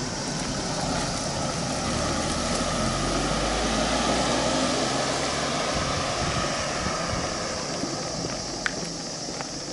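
A motor vehicle passing close by: a low engine rumble and road noise that swell to their loudest about four seconds in, then ease off. A single sharp click near the end.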